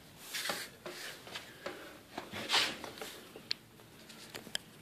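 Handling noise: soft rubbing and scraping, with several short, light clicks near the end.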